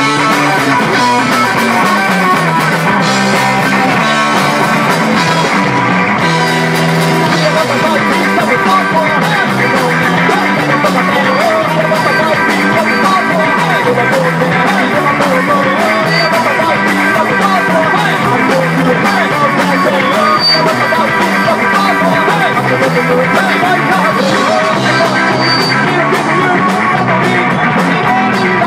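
Rock band playing live at a steady, loud level: electric guitars, bass guitar and drums, with a male lead singer's voice through the vocal mic.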